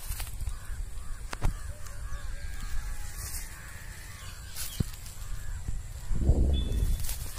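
Wind rumbling on the microphone in an open field, with a strong gust about six seconds in. Birds are calling faintly behind it, and crows are cawing.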